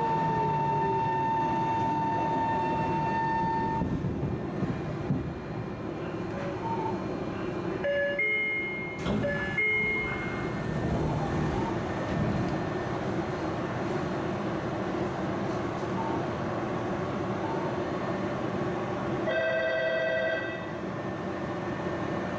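Tokyo Metro 05 series chopper-controlled subway car running, heard from inside the car: steady wheel and rail rumble with a high, steady chopper tone that stops about four seconds in. Brief whistling tones come near the middle, and a short chord of several tones sounds near the end.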